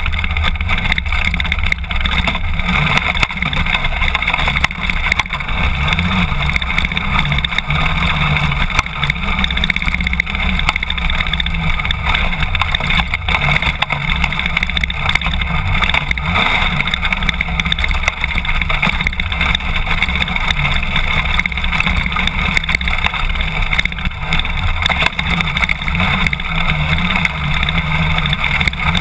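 BMW F800GS motorcycle's parallel-twin engine running at steady speed on a gravel track, mixed with a steady rush of wind and road noise on the bike-mounted microphone.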